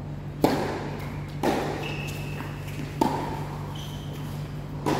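Tennis balls being hit during a doubles rally: four sharp pops of ball on racket or court, about one to one and a half seconds apart, each with a short ring. Brief high squeaks come between the hits.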